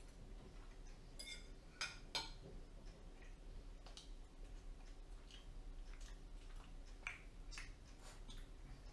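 Faint clicks and clinks of a metal fork against a ceramic plate, two brighter ringing clinks about one to two seconds in, with quiet chewing of an egg roll between them.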